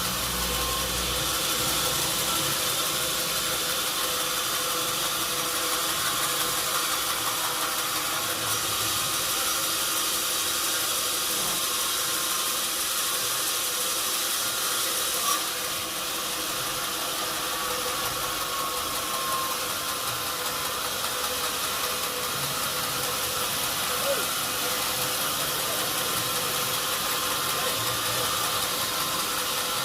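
Sawmill machinery running steadily: an even, high hiss with a faint steady hum beneath it, broken only by two brief ticks, about midway and again about two-thirds of the way through.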